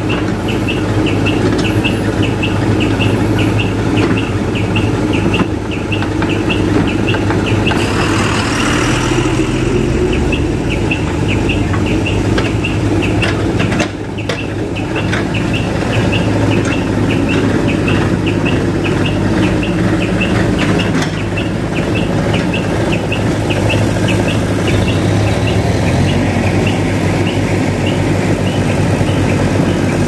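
Diesel engines of a JCB backhoe loader and a mobile crane running steadily. A regular high ticking comes about two or three times a second, and there is a brief hiss about eight seconds in.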